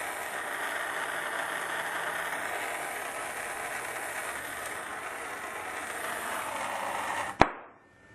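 Gas soldering torch flame hissing steadily as it heats a copper pipe-to-brass valve joint so the solder flows. The hiss stops abruptly with a single sharp click near the end.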